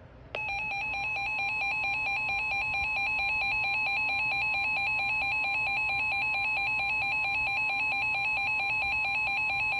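Emergency Alert System attention tone from a weather radio broadcast: a loud, steady electronic alert tone made of several pitches, the signal that comes before a severe thunderstorm warning is read. It starts a moment in and cuts off abruptly at the end.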